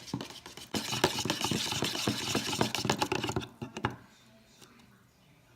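A spoon stirring quickly through a mixture of powdered sugar and water in a container, with rapid clinking and scraping for about three seconds before it stops.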